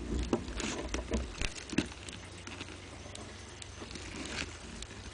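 Irregular dry clicks and crackles close to the microphone, thickest in the first two seconds and fainter after, over a low steady hum.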